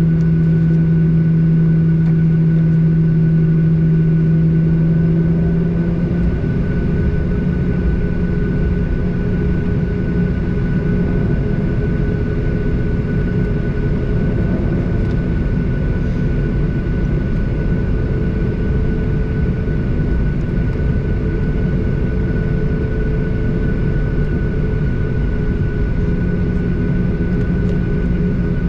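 Cabin noise of a Boeing 737-800 taxiing, its CFM56-7B engines at idle: a steady hum with a low drone that shifts pitch about six seconds in and again near the end.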